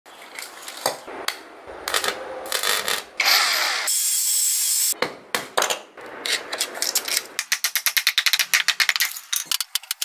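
Workshop sounds of taking apart microwave transformers: scattered clinks and knocks of steel transformer cores being handled, a burst of power-tool noise lasting a couple of seconds about three seconds in, then a quick run of sharp taps at roughly ten a second near the end.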